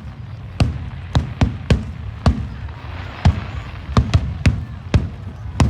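Fireworks bursting overhead in a rapid, irregular volley of sharp bangs, about eleven in under six seconds.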